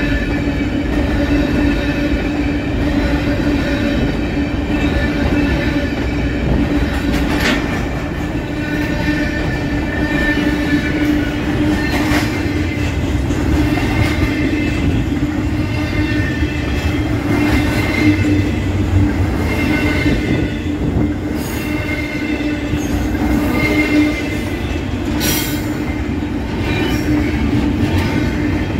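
Train rolling past, its steel wheels squealing against the rails in shifting high-pitched tones over a steady low hum. A few sharp clicks come through along the way.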